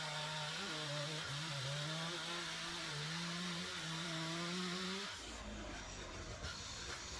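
Stihl MS462 two-stroke chainsaw running steadily under load, ripping lengthwise through a pine trunk in a homemade beam-machine mill, its pitch wavering slightly with the cut. About five seconds in, the engine tone drops out for about two seconds and a low rumble takes over, then the engine tone returns.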